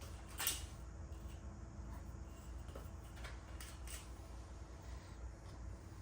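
A few faint clicks and light taps of a tool being handled while measuring dirt-bike chain slack, over a steady low hum.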